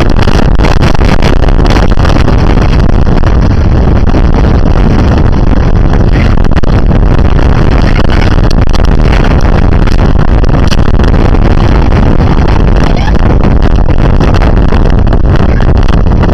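Strong wind buffeting the microphone: a loud, steady rumble heaviest in the bass that nearly overloads the recording.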